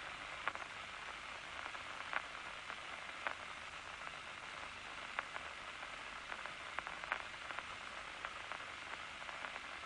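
Steady hiss of an old recording with faint clicks scattered irregularly through it.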